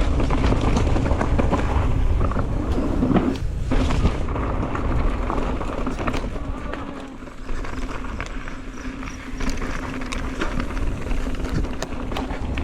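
Mountain bike riding down a rough dirt trail: steady wind buffeting on the microphone and tyre noise over the dirt, with frequent rattles and knocks from the bike over rough ground, easing briefly a little past halfway.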